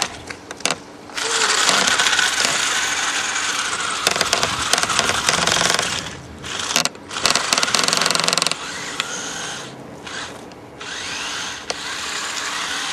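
Electric motor of a remote-control car whining under throttle in bursts, with brief stops and a few rising revs.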